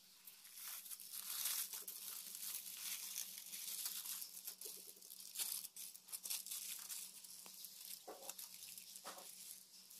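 Aluminium foil crinkling and rustling irregularly as it is rolled up around a sausage and its ends twisted shut.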